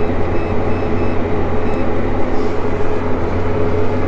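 John Deere tractor's diesel engine running steadily, heard from inside the cab as a constant low hum with a steady tone above it.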